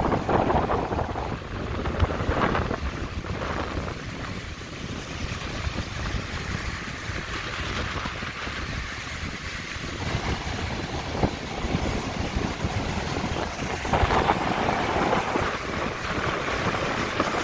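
Surf breaking over a shallow rocky reef flat and washing around a concrete walkway, with strong wind buffeting the microphone. A bigger wave crashes about fourteen seconds in, and the wash stays louder from there.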